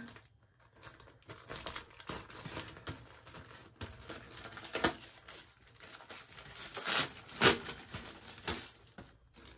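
Packaging crinkling and rustling in irregular bursts as stickers are handled and taken out, with one sharper crinkle near the end.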